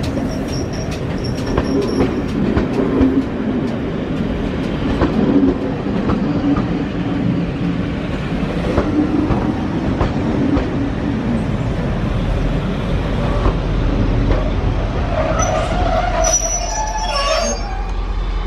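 Railway passenger coaches of a steam-hauled train rolling past close by: a steady rumble of wheels on the rails with scattered knocks over the rail joints. A brief high metallic wheel squeal comes near the end.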